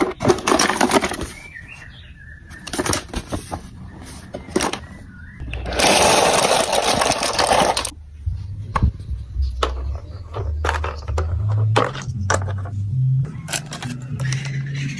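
Marbles running through a plastic building-block marble run: a spell of dense clattering about halfway through, then scattered clicks and a low rolling rumble that shifts up and down in pitch as they travel along the track.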